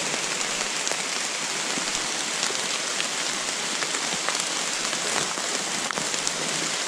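Steady rain falling on the forest's leaves, an even hiss with scattered sharp drop ticks.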